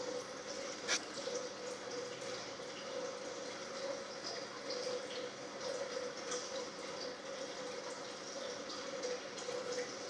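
Butter slime being squished and worked by hand, with soft wet, sticky sounds over a steady hum.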